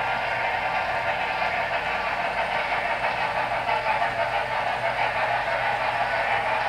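HO scale model freight train running on its layout: the Paragon3 sound decoder in the Norfolk & Western Y6b 2-8-8-2 steam locomotive plays steady steam chuffing through its small speaker, mixed with the clatter of the freight cars rolling over the track.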